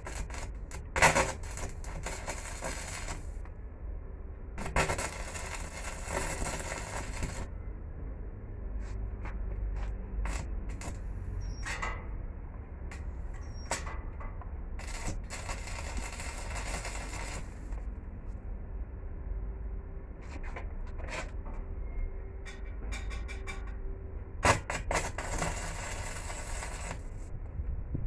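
Metal parts clinking and knocking as they are handled, with three stretches of hiss lasting about three seconds each over a steady low hum.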